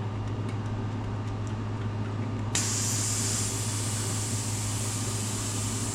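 Air hissing out of a rear tubeless mountain bike tire through its opened valve: the tire is being deflated so the bead can be broken. The hiss starts suddenly about two and a half seconds in and runs steadily, over a steady low hum.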